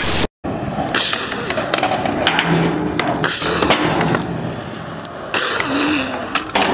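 After a brief dropout, skateboard wheels roll on concrete with scattered board clacks and knocks, and voices are heard faintly in the background.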